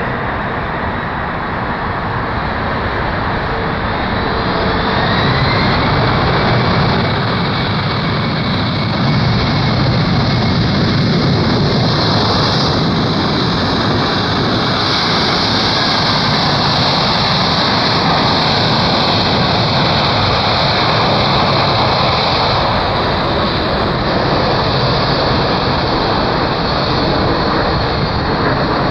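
Boeing 767 freighter's twin turbofan engines just after touchdown. A rising whine a few seconds in, then a loud, steady roar as the engines spool up for reverse thrust during the rollout, easing toward taxi near the end.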